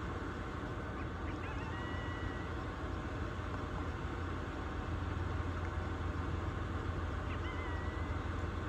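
A steady low hum under a haze of noise, growing a little louder about halfway through. Two faint, short high calls sound over it, one about a second and a half in and one near the end.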